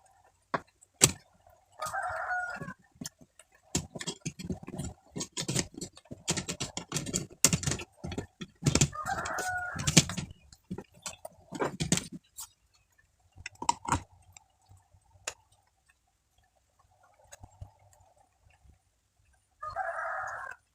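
A rooster crowing three times, each call about a second long, among a run of sharp clicks and knocks from hard objects being handled.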